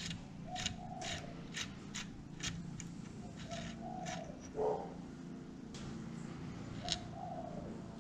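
A small steel tool clicking and scraping in a threaded hole of a string trimmer's metal gear head clamped in a vise, in irregular sharp ticks with a louder knock about halfway through. A dove coos three times in the background, about three seconds apart.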